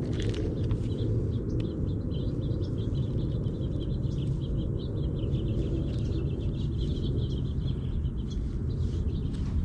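Steady low outdoor rumble, with a small bird twittering in rapid, high chirps through most of it.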